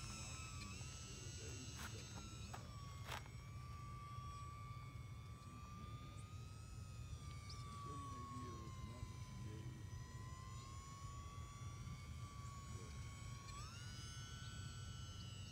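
E-flite UMX Turbo Timber's small electric motor and propeller whining in flight, one steady tone that wavers slowly up and down and steps up in pitch near the end as the throttle is opened.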